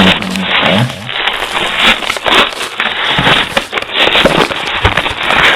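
A package being torn and worked open, with irregular bursts of rustling and crackling packaging that are heavily over-amplified and distorted.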